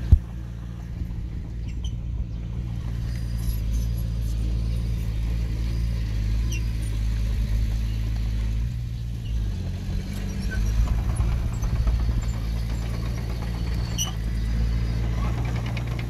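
Diesel engine of heavy earthmoving machinery running steadily, its note shifting about ten seconds in. A single sharp knock sounds right at the start.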